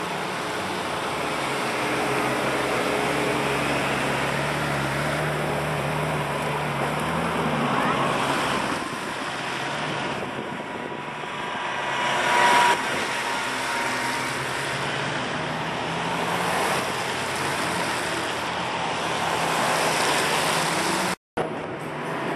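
Cars driving past close by on a road, a continuous mix of engine and tyre noise. A steady engine note runs for the first several seconds, and the sound peaks briefly about twelve seconds in as a vehicle passes. The sound cuts out for a moment near the end.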